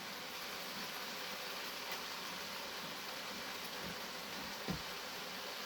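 Chicken and tomato masala sizzling steadily in a frying pan, an even hiss, with two faint soft knocks near the end.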